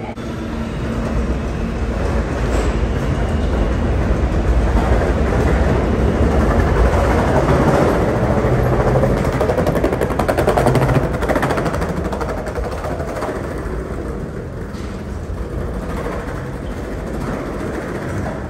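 New York City subway train running through the station: a loud rumble with rapid clattering of wheels on rails, building up to its loudest about ten seconds in and then easing off.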